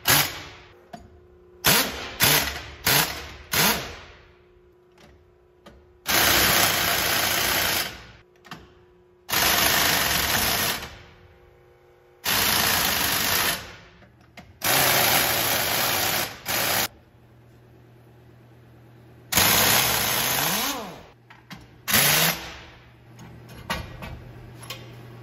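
Heavy-duty pneumatic impact wrench hammering in repeated bursts as it tightens the nuts of a wheel puller to force a seized semi-trailer wheel off its hub. Several short blips come first, then about five longer runs of a second or two each.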